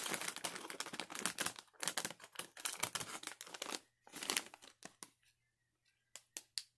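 Snack bag of fried pork rinds crinkling as it is opened and handled. There are about four seconds of dense crackling, then a few separate crinkles near the end.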